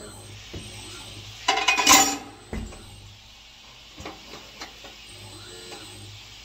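Metal clanks and clinks from a tyre changer as a tyre is worked onto a rim: a loud burst of clanks about one and a half to two seconds in, a dull thump just after, then a few lighter clicks.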